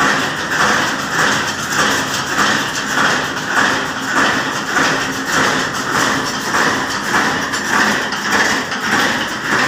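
Wire fence-making machinery running with a steady, rhythmic mechanical clatter, about four beats every three seconds.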